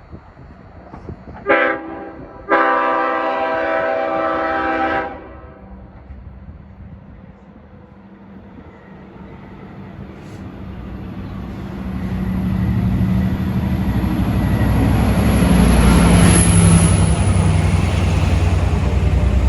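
Long Island Rail Road locomotive 506, a DM30AC diesel, sounds its multi-chime horn: one short blast, then a longer one of about two and a half seconds. Then the diesel engine and the wheels on the rails grow steadily louder as the train approaches.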